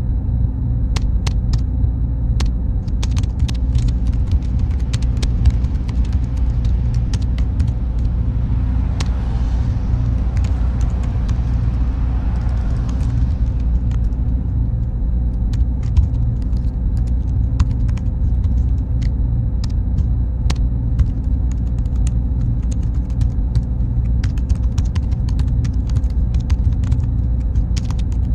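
Steady low server-room drone with a faint high whine, under irregular computer keyboard typing clicks. A vehicle passes by, swelling and fading from about 8 to 14 seconds in.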